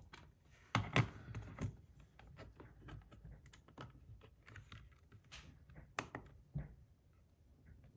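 Scattered small clicks and taps of a brass fidget spinner's parts being handled and set down on a small scale, with a few sharper knocks about a second in and around six seconds in.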